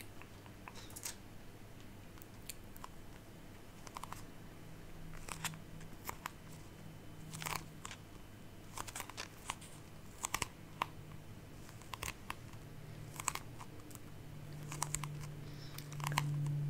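Fingernails tapping on an object: irregular, light, sharp taps, about one a second. A low steady hum runs underneath and grows louder near the end.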